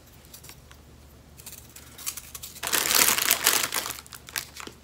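Plastic packaging crinkling as it is handled, with small crackles and then a louder burst of rustling lasting about a second, a little over halfway through.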